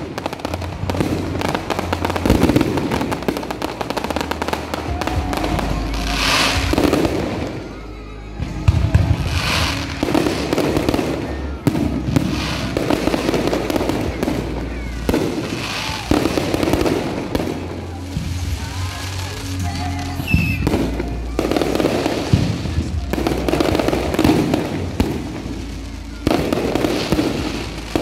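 Fireworks going off continuously, with repeated bangs and crackling over a low rumble, and music playing alongside.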